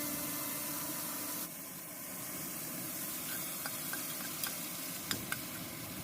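Food frying in a hot pan: a steady sizzle with a few sharp crackling pops in the second half.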